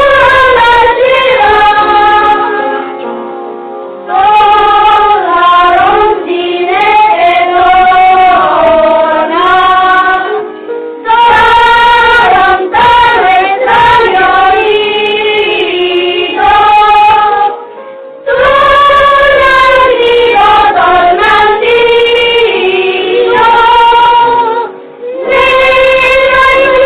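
Children's choir of boys singing in unison, in long sung phrases with a short pause about every seven seconds.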